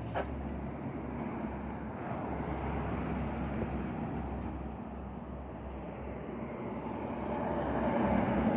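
Heavy diesel trucks driving past one after another on an open road: engine drone and tyre noise, growing louder near the end as a truck passes close. A short click just after the start.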